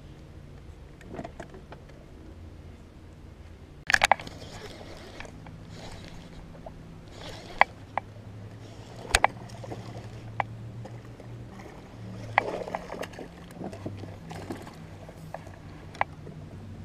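Bass thrashing and splashing at the water's surface while being fought in on a topwater frog, with the biggest splash about four seconds in and another about twelve seconds in. There are sharp clicks in between, over a steady low hum.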